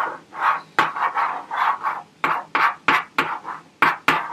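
Chalk scratching on a chalkboard as a word is written out, in short separate strokes, about three to four a second.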